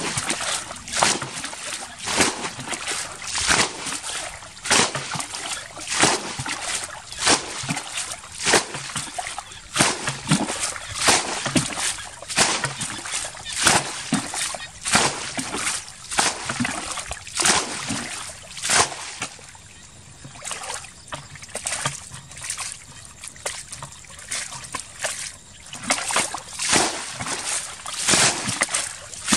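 Water being bailed by hand from a shallow muddy pool with a plastic bucket: a scoop and a splash about once a second as each bucketful is flung out, easing off for a few seconds a little past the middle.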